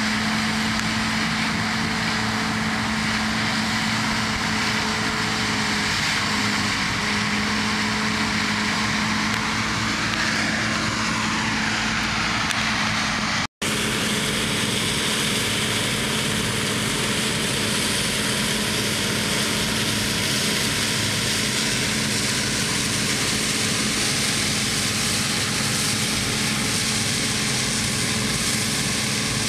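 Combine harvesters running steadily under load while harvesting, engine and threshing machinery making a constant drone with a steady hum. About halfway through the sound cuts out for an instant, then a second combine runs on steadily while it harvests and unloads grain through its auger.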